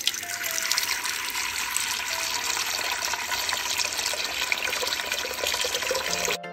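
Water running in a thin stream into a stainless steel pot, a steady splashing rush as the pot fills, which cuts off suddenly near the end.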